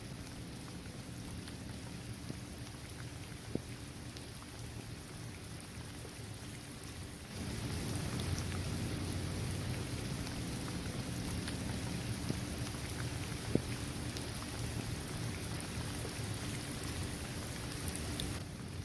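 Steady rain falling on a basketball court, trees and grass, with a few single drops ticking sharply. About seven seconds in the rain grows louder and brighter, easing back just before the end.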